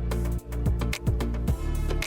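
Background music: an electronic track with a steady beat and deep sliding bass drum hits.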